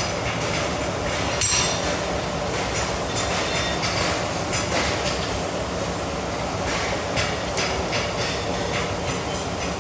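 Blacksmith's forge running with a steady rushing noise, broken by a few sharp metal strikes at irregular moments.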